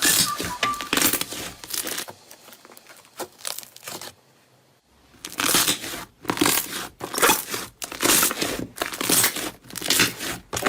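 Crunchy slime being squeezed and poked: dense, irregular crackling and popping, which fades to a near-quiet pause about two seconds in and starts again a few seconds later.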